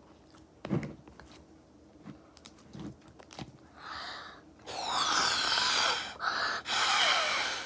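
Breath blown hard through a straw into a film of slime, inflating a bubble: two long, breathy blows with a short break between them, and a few faint clicks from handling the straw and slime before them.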